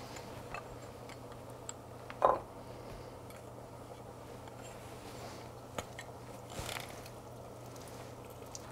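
Lime halves being pressed in a handheld citrus squeezer: faint squishing and dripping of juice with small clicks of the press, and one short louder sound about two seconds in.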